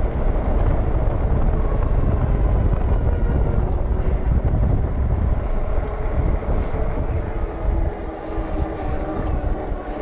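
Wind rushing over the microphone and fat tires rolling on pavement as an Engwe Engine Pro fat-tire e-bike is ridden at speed, with a faint steady whine from its hub motor.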